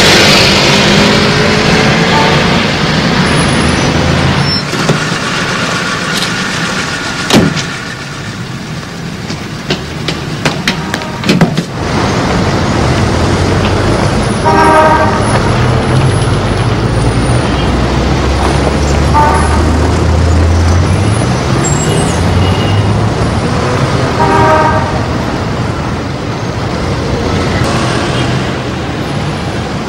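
Car horns honking in street traffic: a run of short honks starting about halfway through, four in all, over the sound of passing traffic and a running vehicle engine. A few sharp clicks come before the first honk.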